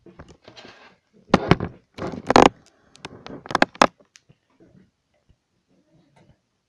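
Handling clatter: a run of sharp knocks and rattles in the first four seconds as objects are moved about on a tabletop and the kinetic desk toy is set going. After that only a few faint ticks while its steel rings spin almost silently.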